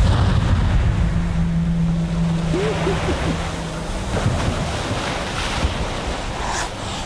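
Rushing, surging floodwater, with a few short cries about two and a half to three seconds in.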